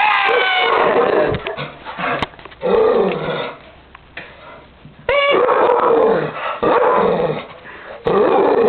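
Dogs barking and growling in loud, repeated bursts, mixed with a person screaming at them. The sharpest, highest cries come right at the start and again about five seconds in.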